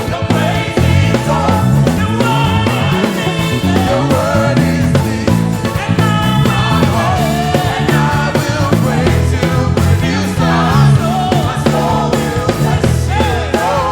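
Contemporary gospel praise music: singing over a band, with a busy bass line moving underneath.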